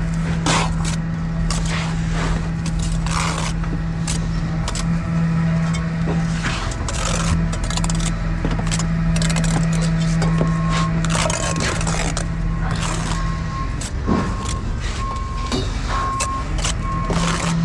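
Steel brick trowel scraping and clacking on mortar and clay bricks while bricks are laid, over a steady machine hum. From about ten seconds in, a short beep repeats roughly once a second.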